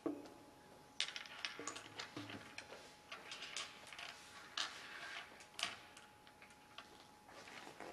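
A wooden chess piece knocked down on a wooden chessboard, then an uneven run of small clicks and taps as wooden pieces and playing chips are moved and handled.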